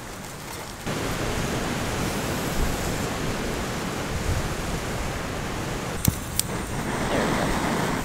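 Strong wind blowing across the microphone, a steady rushing rumble that comes up suddenly about a second in. Two sharp clicks come close together about six seconds in.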